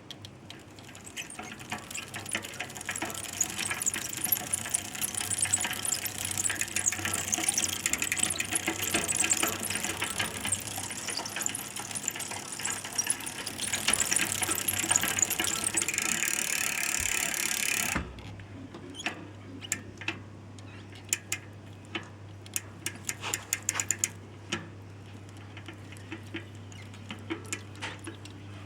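Stels Navigator 500 mountain bike's chain and sprockets turning with a rapid clicking squeak, which the owner takes to come from the chain, though the chain is new and the sprockets are in good shape, and he wonders whether silicone lubricant spray is the cause. About 18 seconds in the fast run stops and only sparse, irregular clicks remain.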